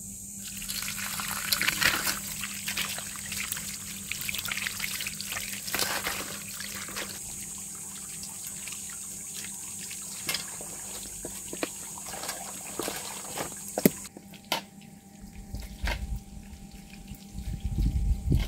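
Water from a garden hose pouring and splashing over raw lamb shanks in a perforated metal tray while hands rub and rinse the meat. About three-quarters through, the splashing gives way to a quieter stretch with a few scattered knocks and a low rumble near the end.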